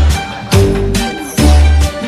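Background music with a steady beat and strong bass notes.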